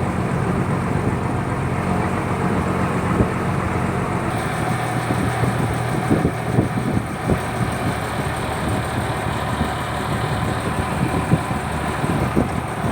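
A purse seine fishing boat's engine running steadily under a haze of noise. Its hum shifts about four seconds in, followed by a scattering of short knocks.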